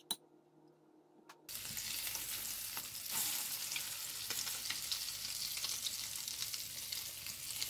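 Egg-battered donggeurangttaeng (Korean meat patties) frying in shallow oil in a pan: a steady sizzle with many small pops, starting about a second and a half in after a short quiet moment.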